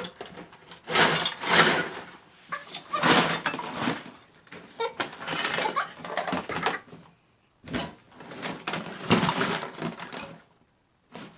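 Rummaging through a container of plastic toys: a series of rustling, clattering bursts, each a second or two long, with a short pause near the end.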